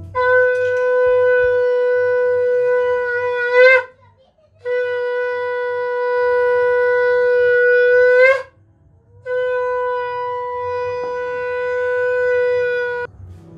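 Conch shell (shankha) blown three times in puja worship, each a long, steady, horn-like note of nearly four seconds, the first two bending up in pitch as they end.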